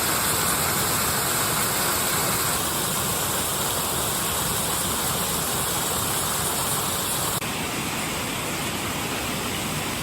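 Steady rushing of a waterfall, water falling onto rocks below. About seven seconds in it drops a little quieter and duller.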